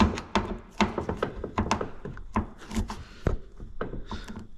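Irregular run of light clicks and knocks from hand tools being handled against a car door, with one louder knock about three seconds in.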